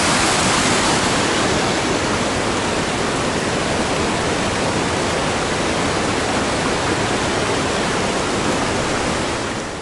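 Rushing water of a rocky mountain river: white water pouring over boulders, a steady loud rush that softens a little about two seconds in and fades out near the end.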